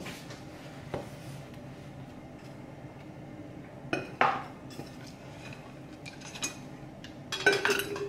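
Clinks and knocks of kitchen items handled on a countertop, among them a metal insulated bottle being picked up and set down. A scatter of single clicks, a louder knock about four seconds in, and a cluster of clinks near the end, one of which rings briefly.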